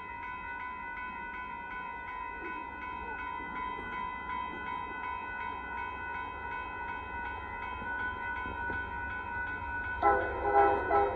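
Grade-crossing warning bell ringing steadily as the Amtrak Texas Eagle's locomotive approaches with rising rumble. Near the end the locomotive horn breaks in loud, as a string of short blasts in quick succession.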